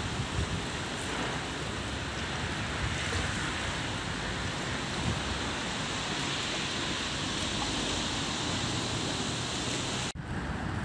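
Steady rushing of a flooded river running fast and high along a concrete embankment wall, a continuous even noise that breaks off abruptly near the end.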